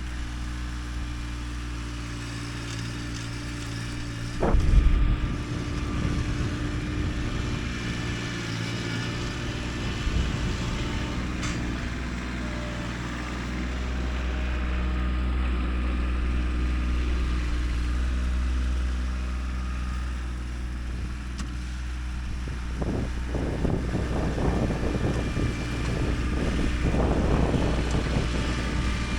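Kubota tractor engine running steadily under load while breaking up a dirt pile, with a loud clunk about four and a half seconds in.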